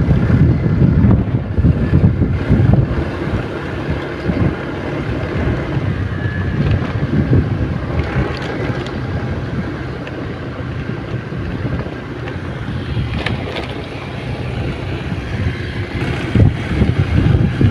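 Wind buffeting the microphone of a moving vehicle, a loud, uneven low rumble with engine noise running underneath.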